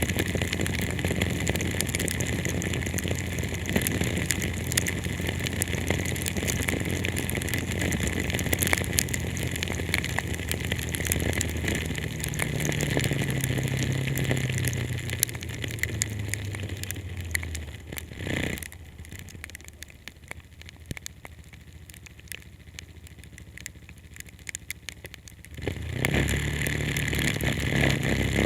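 Heavy rain pattering on a moving car, with the engine and road noise running underneath; the engine note rises and then falls away. For several seconds past the middle everything goes much quieter, then the engine and rain noise come back strongly near the end.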